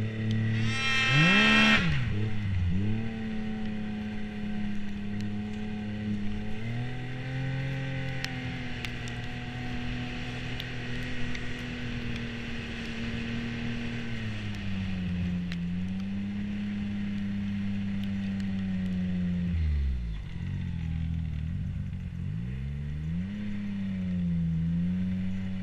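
Snowmobile engine revving sharply about a second in, then running at a steady cruising pitch. Near the end it eases off and picks back up a couple of times.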